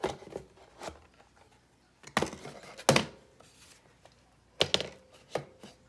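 Handling knocks and clicks as the home-built switch box is opened up: about eight separate sharp knocks, the loudest about three seconds in.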